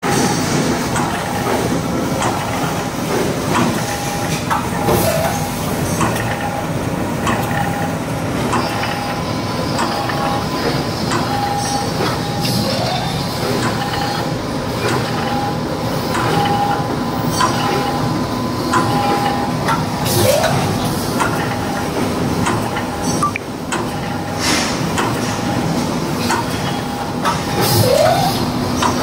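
Full automatic wire mesh panel welding machine running: a steady mechanical clatter with a short hum that repeats about once a second, scattered sharp clicks, and a brief squeaky glide every seven or eight seconds.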